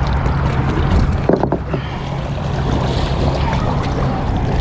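Steady low hum with wind and water noise, and a brief clatter of knocks about a second and a half in.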